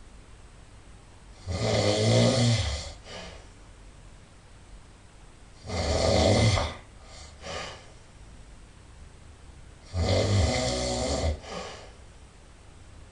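A sleeping person snoring loudly: three long, rattling snores about four seconds apart, each followed by a short, fainter puff of breath.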